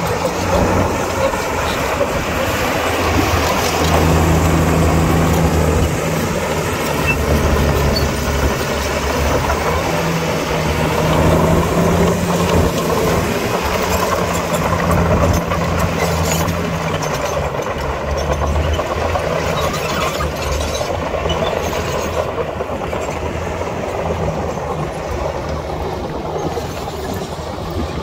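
Heavy diesel engine of earthmoving machinery running hard under load, a deep steady drone that is strongest through the first half and eases off after about seventeen seconds.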